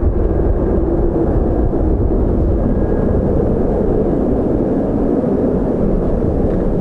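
Twin-engine widebody airliner's jet engines running at high power in reverse thrust during the landing rollout, a steady loud roar, with strong gusty wind rumbling on the microphone.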